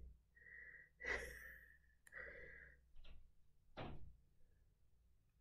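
Near silence, with a few faint breaths from a woman and a soft click a little under four seconds in.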